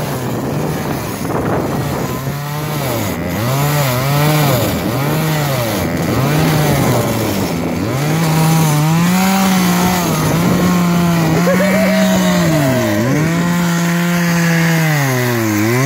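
Chainsaw cutting down into thick lake ice, its engine speed rising and falling about once a second as the bar is worked into the cut. It then holds high and steady for several seconds before dipping sharply twice near the end.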